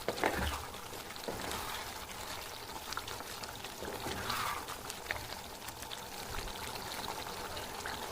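Chicken curry simmering in a pan, the gravy bubbling, with a spoon stirring and scraping now and then.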